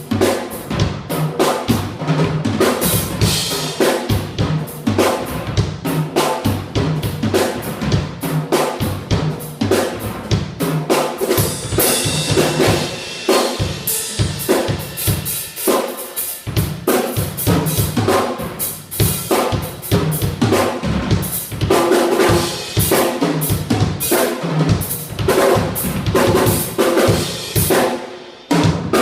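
Loud music driven by a drum kit, with kick and snare hits keeping a fast, steady beat over bass notes.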